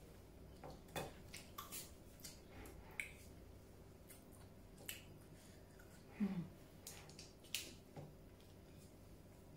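Faint eating sounds of someone eating rice and fish by hand: scattered wet smacks and clicks of the lips and chewing, with a short low falling hum about six seconds in.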